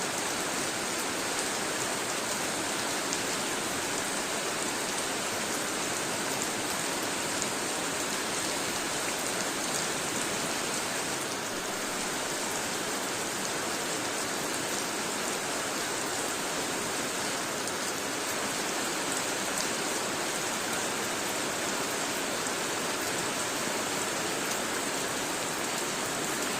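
Steady rain falling, an even hiss with a fine patter of drops on surfaces.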